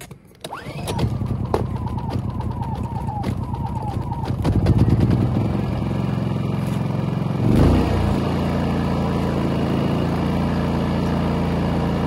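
WEN 3800-watt inverter generator's small engine starting up and running. Its note shifts about four seconds in and again near the eight-second mark, then settles into a steady run.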